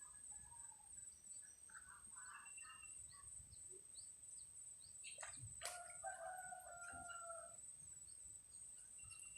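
A rooster crows once, faintly, about six seconds in, over a steady high insect whine and scattered small bird chirps.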